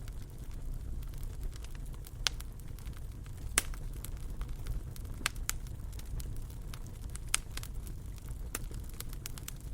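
Wood fire crackling in a fireplace over a steady low rumble of flames, with a handful of sharper pops scattered through.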